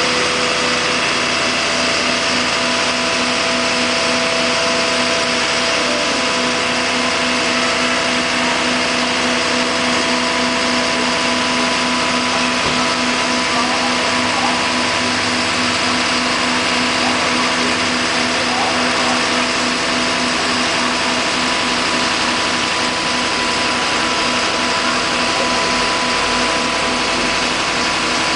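A machine running with a steady drone and a few constant hums.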